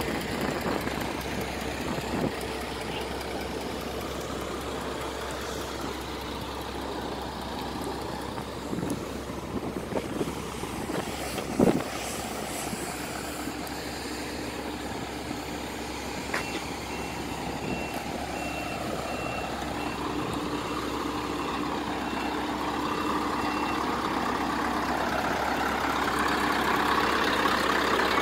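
Scania R164 580's 16-litre V8 diesel engine idling steadily, growing louder toward the end, with a few sharp clicks about ten seconds in. A run of high, evenly spaced beeps sounds through the middle.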